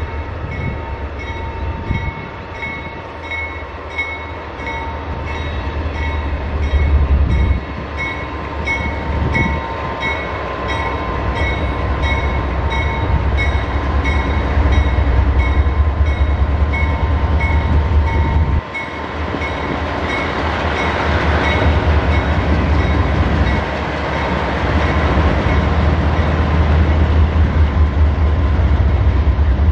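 Norfolk Southern freight train passing: a deep, steady diesel-locomotive rumble with a steady high-pitched squeal over it. The rumble drops out for a moment about two-thirds of the way in, then the noise of the train swells back louder.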